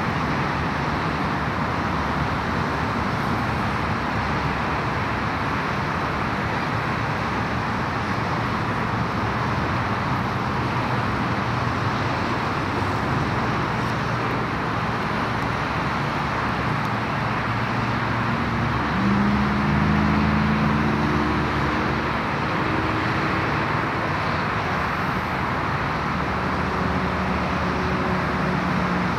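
Steady road traffic noise. About two-thirds of the way through, a louder engine hum with a few steady low tones joins it.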